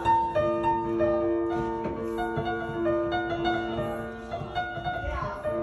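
Background instrumental music with a piano melody, its notes sounding one after another.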